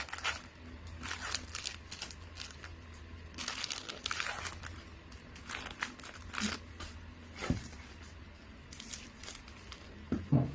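Gift-wrapping paper rustling and crinkling in irregular bursts as it is folded around a box, with a few soft knocks and a steady low hum underneath.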